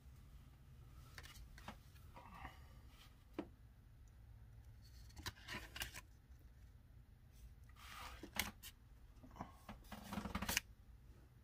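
Faint, scattered rustling, rubbing and light clicks of Pokémon trading cards and their pack wrappers being handled and sorted. The loudest burst of handling comes near the end.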